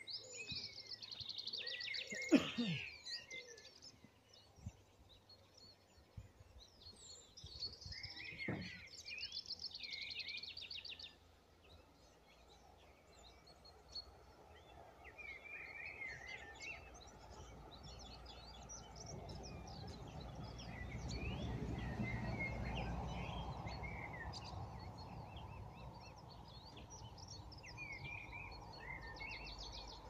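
Several songbirds singing and chirping, with trilled phrases and scattered short calls. About two thirds of the way through, a low rumble swells and then fades under them.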